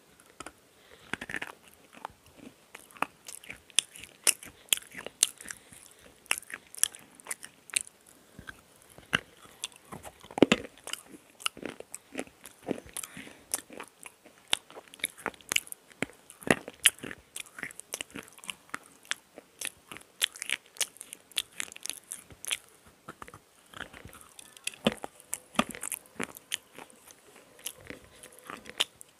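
A KitKat-shaped bar of black slate pencil being bitten and chewed close to a clip-on microphone: a steady run of crisp crunches and cracks, with the loudest snap about ten seconds in.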